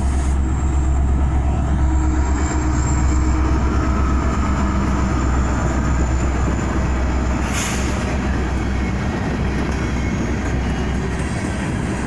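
BNSF coal train rolling past close by: a steady low rumble and the running noise of the cars on the rails. A brief high-pitched noise cuts through about seven and a half seconds in.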